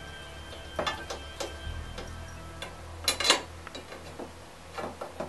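Scattered light metallic clinks and taps as a steel seat bar and bracket are set against the golf cart's rear struts and bolts are handled, with the loudest knocks about three seconds in. Quiet background music runs underneath.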